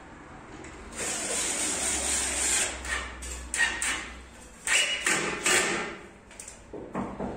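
Cordless drill-driver running against a wood-grain laminated furniture panel. There is one long run about a second in, then several shorter bursts that stop and start, and a last short one near the end.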